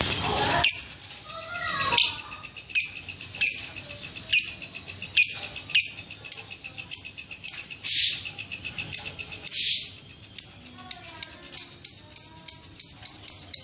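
Baby lovebird chirping over and over: short, sharp, high-pitched calls about two a second, quickening to about three a second near the end, with two longer, noisier calls near the middle.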